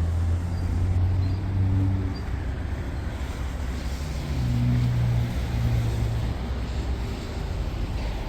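City street traffic: a motor vehicle's engine running close by, a low drone that shifts in pitch.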